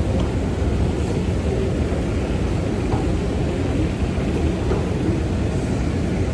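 Steady low rumble of a long escalator in motion, heard while riding down it, with a few faint clicks.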